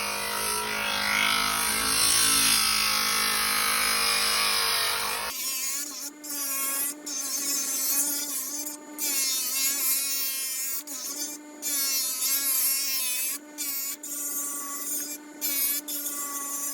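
A small handheld power tool's motor running with a steady whine. About five seconds in the sound changes abruptly: thinner, its higher pitches wavering, broken by short gaps.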